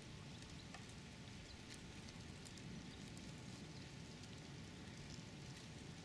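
Faint outdoor ambience: a low steady rumble with scattered light ticks and crackles.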